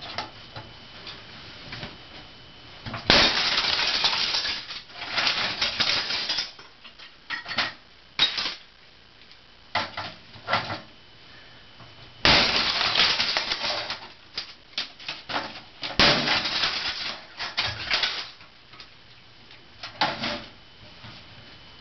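A hammer smashing brittle plastic items, breaking them apart. Single sharp strikes alternate with three longer stretches of shattering and clattering pieces, starting about three, twelve and sixteen seconds in.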